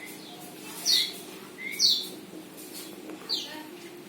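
A bird calling: repeated short, high chirps, each sliding down in pitch, roughly one a second.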